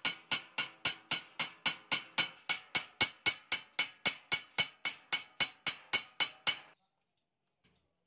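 Hand hammer striking the sheet-metal rim of a round perforated sieve, about four sharp ringing blows a second, working around the hoop to close the rim over the perforated sheet. The hammering stops abruptly a little before the end.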